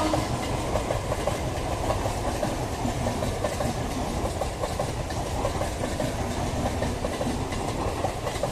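Electric multiple-unit local train running past on the track: a steady rumble with rapid clicking of the wheels over the rail joints.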